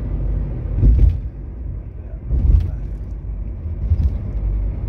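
Car cabin noise while driving: a steady low rumble of the engine and tyres, louder about a second in and again near two and a half seconds.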